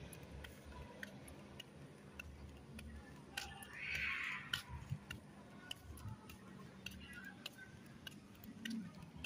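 Quiet ambience with faint, irregular clicks and ticks scattered throughout, and a brief soft hiss about four seconds in.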